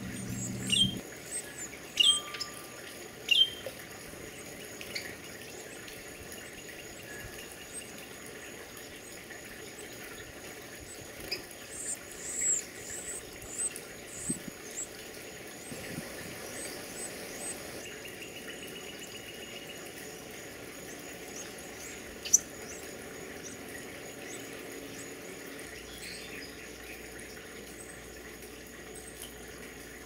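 Carolina wren nestlings begging with short, high-pitched chirps while a parent feeds them at the nest hole: about four chirps in the first few seconds and another quick run a little before halfway, over a steady hiss. A single sharp tap about two-thirds of the way through is the loudest sound.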